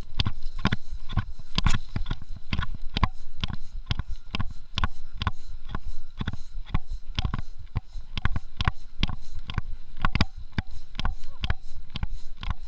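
Mountain bike rattling over bumps on a rough dirt trail, heard through a handlebar-mounted camera: irregular sharp knocks, two or three a second, over a low steady rumble.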